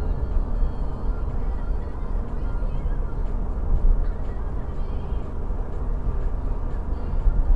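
Steady road and engine noise inside a car's cabin at motorway speed, heaviest in the low bass.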